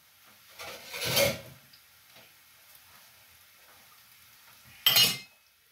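A metal fork clattering and scraping against a frying pan of roasted meat, in two short bursts, the sharper and louder one about five seconds in.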